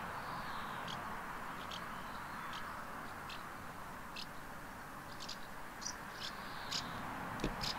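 A horse grazing: short crisp rips as it bites off grass, about once a second, over a steady background hiss.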